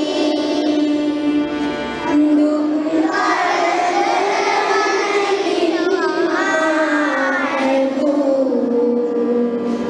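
Children singing a slow song to musical accompaniment, with long held notes.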